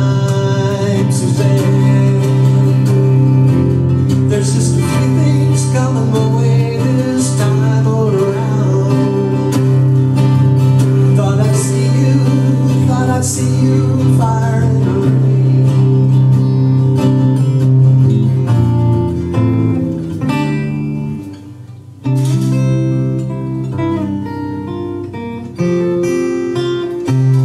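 Acoustic guitars fingerpicking an instrumental ending passage, with a steady low note under the picked melody. The playing thins and briefly drops away about 21 seconds in, then picks back up.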